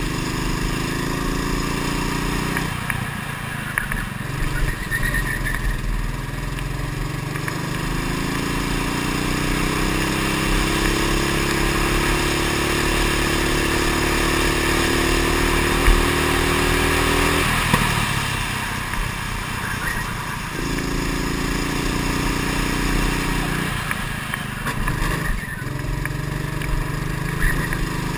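Go-kart engine heard from an onboard camera on the kart, its pitch climbing steadily as it accelerates along the straights and dropping off abruptly several times as the driver lifts off for corners.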